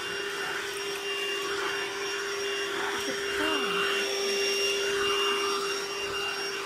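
Hoover cordless stick vacuum cleaner running steadily, a constant motor hum and whine over rushing air as it sucks.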